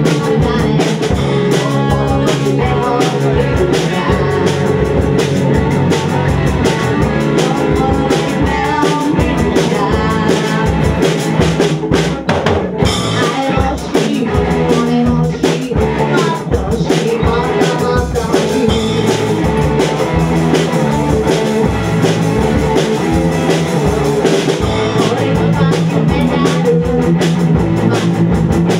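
Live rock band playing: electric guitar, bass guitar and drum kit keeping a steady beat, with a singer's amplified voice over them.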